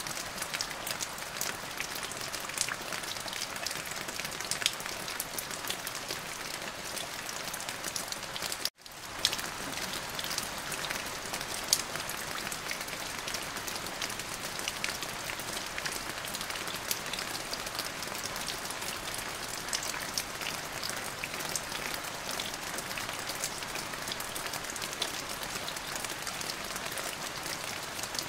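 Steady rain falling, with many individual drops ticking sharply on a hard surface over an even hiss. About nine seconds in, the sound cuts out completely for an instant, then fades back in.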